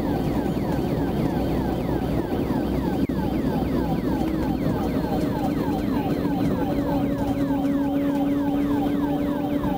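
Police car siren sounding in a fast yelp, about three to four falling sweeps a second, over the patrol car's engine drone and road noise while driving at speed.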